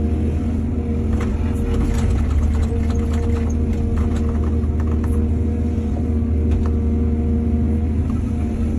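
Excavator's diesel engine running steadily, with a run of knocks and clatters from about one to five seconds in.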